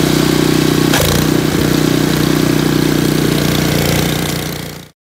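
Two-stage gas snow blower's engine running steadily, with a brief click about a second in. The sound fades out near the end.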